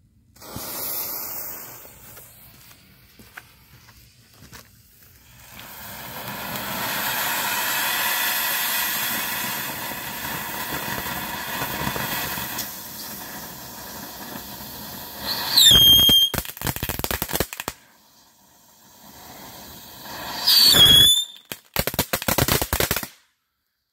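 Top Gun 'Gremlins' firework fountain: a brief fuse hiss, then a long steady rush of spraying sparks. About 16 and 21 seconds in it lets out two loud, shrill whistles, and each is followed by a short spell of rapid crackling.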